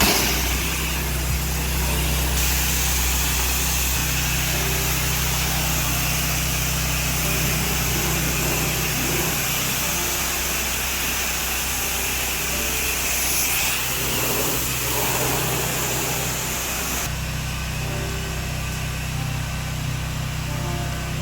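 Pressure washer engine running steadily while the high-pressure water spray hisses as surfaces are rinsed. The spray starts suddenly, then eases off a few seconds before the end.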